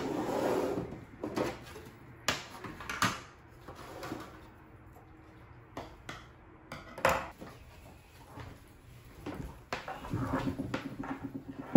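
Scattered light clicks and knocks of a belt with a metal buckle and a pair of scissors being handled and set down on a tabletop.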